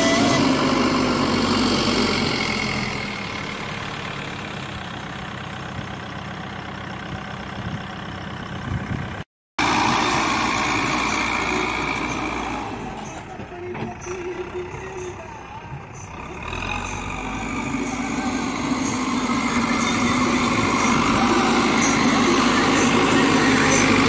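Caterpillar 424B backhoe loader's diesel engine running steadily while the front loader bucket pushes and levels dirt. The engine is loud at first, fades through the middle and grows loud again near the end. The sound cuts out for a moment about nine seconds in.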